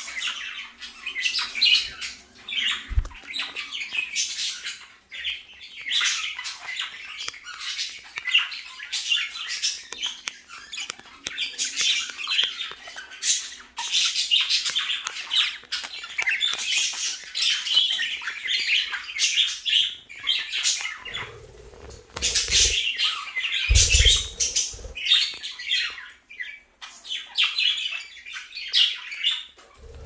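Several budgerigars chattering and warbling without pause, a dense mix of short chirps and squawks. A few low thumps come about two-thirds of the way through.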